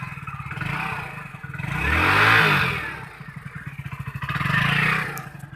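Hero Splendor Plus BS6 motorcycle's single-cylinder four-stroke engine idling with an even beat and being revved twice, a strong blip about two seconds in and a smaller one near the end. It runs smooth for now, without the head knocking that it is said to develop once hot and under load.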